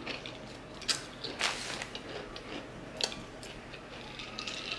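Potato chips being bitten and chewed, with a few sharp crunches scattered through the moment.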